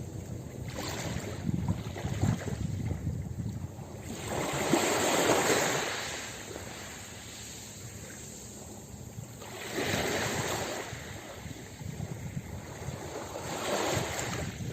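Ocean surf breaking on a beach: three waves surge in and wash back about every four to five seconds, the first, about a third of the way in, the loudest.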